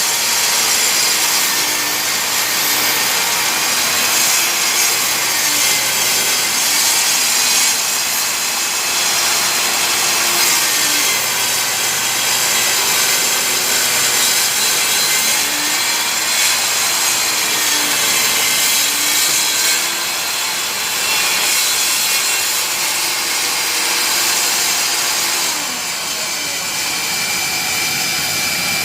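Table saw ripping a thick chainsaw-milled plank held in a tapering jig. The blade runs steadily under load, its pitch sagging and recovering several times as the cut goes on.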